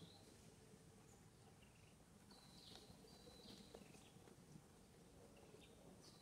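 Near silence: faint outdoor background with a few faint, short high chirps, mostly around the middle.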